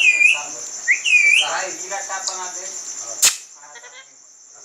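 A pet parrot gives two short whistled notes, each rising and then dipping, close together near the start, over a steady high-pitched buzz. A single sharp click comes about three seconds in.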